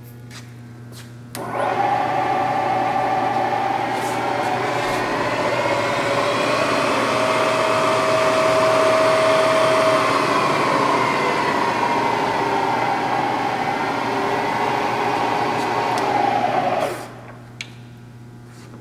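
Bridgeport Series 1 milling machine's 2 hp spindle motor and variable-speed belt head starting up and running with a steady whine, about a second and a half in. Its pitch rises slowly and then falls back as the spindle speed is changed. It stops about a second and a half before the end.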